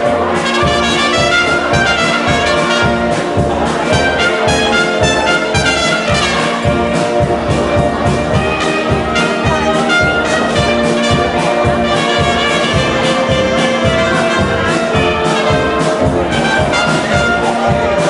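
Big band playing jazz live: saxophones, trumpets, trombones and tuba over a drum kit keeping a steady beat.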